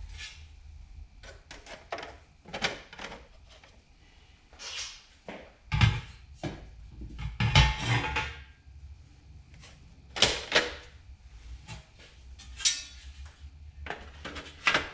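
Plastic instrument-cluster parts being handled and fitted together on a bench: scattered clicks, knocks and rattles of panels and bezel pieces. The sharpest knocks come about six, seven and a half, ten and twelve and a half seconds in.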